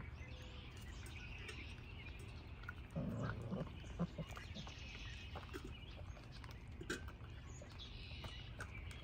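Saint Bernard puppies eating kibble and jostling each other: faint scattered crunches and small clicks, with a short, low puppy vocalisation about three seconds in.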